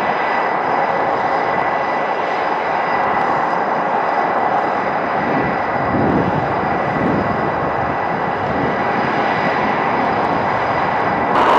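Jet fighter engine running steadily on the flight line: a constant turbine whine over a broad rush of exhaust noise.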